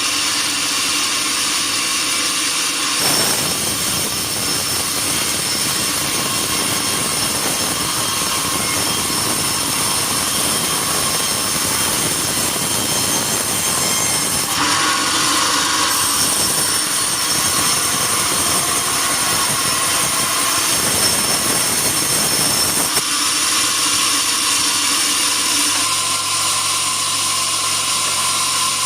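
Sawmill bandsaw running with a steady high whine. About three seconds in, a dense, fuller noise starts as the blade cuts through wood. It stops abruptly about three-quarters of the way through, leaving the machine running.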